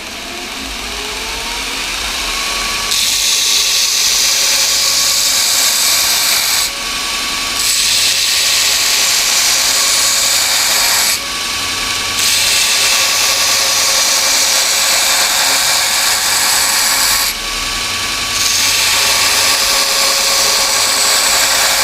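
Vevor 2x72 belt grinder motor speeding up during the first couple of seconds, then running at a steady pitch while metal is pressed against the 36-grit belt in four passes of harsh, sparking grinding, each a few seconds long with short breaks between where only the motor and belt are heard.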